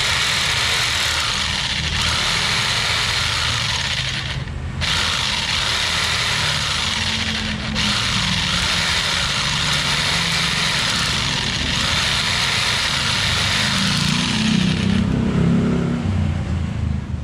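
Mailtank SH29 550-watt jigsaw running free in the air with no workpiece, its motor and blade drive going steadily. It vibrates heavily, which the reviewer puts down to a poorly balanced counterweight. It dips briefly twice, at about four and a half and seven and a half seconds, and stops about fifteen seconds in.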